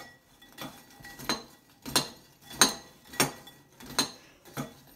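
Metal spoon stirring crushed spicy chips in a ceramic bowl, clinking against the bowl in a steady rhythm, roughly three strikes every two seconds.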